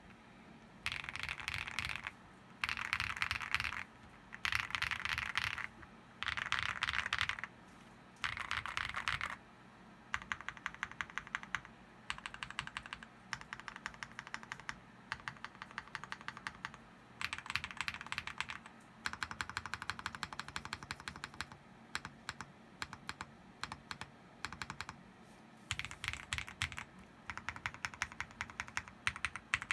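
Typing on an OwLab Mr. Suit R2 custom mechanical keyboard with lubed Zaku switches on a POM plate. It starts with five short runs of very fast keystrokes about two seconds apart, then settles into ordinary typing of separate key clicks with short pauses.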